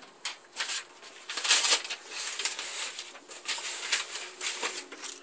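Paper instructions and packaging being handled and torn: irregular crinkling and rustling bursts, the loudest about one and a half seconds in.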